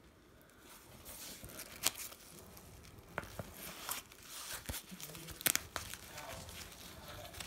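Rustling and crinkling as a blood pressure cuff is handled and fitted around an upper arm, with a few sharp crackles; the loudest come about two seconds in and about five and a half seconds in.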